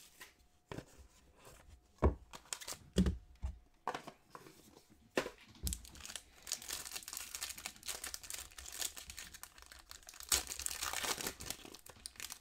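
A cardboard trading-card box is handled and opened, with a few knocks and scrapes. Then a foil Panini Court Kings basketball card pack crinkles and is torn open, loudest near the end.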